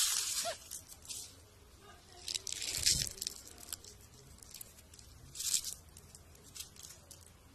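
Dry leaves crackling as they are crushed in a hand, in several short bouts of crunching; the longest is around three seconds in.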